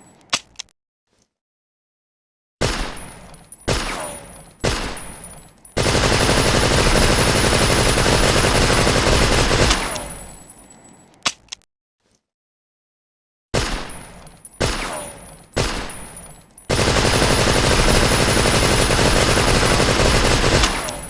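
Tommy gun (Thompson submachine gun) automatic fire: three short bursts, then one long burst of about four seconds that trails off. After a two-second pause the same pattern repeats, with a few faint clicks between the bursts.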